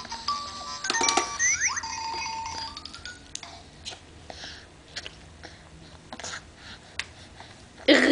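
A simple electronic tune of beeping notes plays for the first few seconds, like a baby toy's or swing's built-in music. Scattered light clicks and ticks follow. Near the end there is one short loud sound that falls in pitch.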